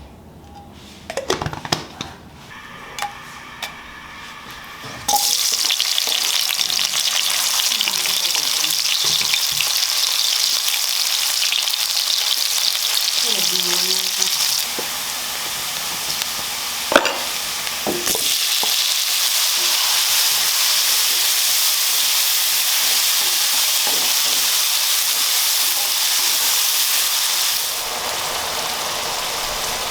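Food dropped into hot oil in a cooking pan, setting off a loud, steady sizzle about five seconds in after a few light clinks of utensils; the frying runs on while it is stirred, with a single sharp clink of a utensil against the pan partway through.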